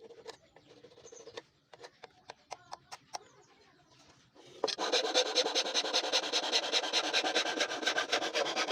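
A hand tool working wood: a few scattered light taps and clicks, then, about four and a half seconds in, a loud, fast run of scraping strokes on wood, many strokes a second.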